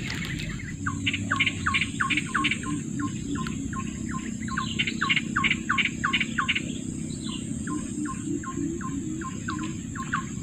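A bird calling a rapid series of short, down-slurred notes, about four a second, in several runs with brief pauses, starting about a second in.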